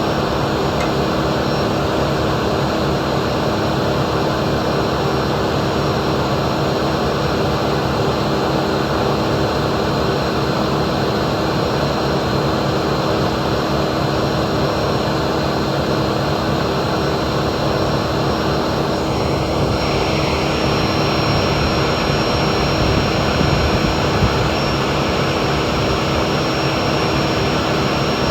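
Heavy diesel work machinery running steadily, a continuous engine drone with a constant high whine over it.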